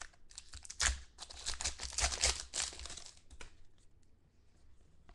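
Wrapper of a Select football card pack being torn open and crinkled by hand, crackling for about three seconds and then dying down to faint rustling as the cards come out.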